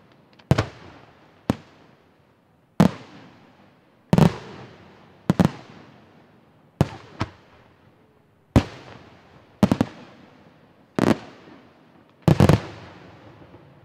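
Aerial firework shells bursting overhead: about a dozen sharp bangs, roughly one a second with a few close doubles, each trailing off in a rolling echo.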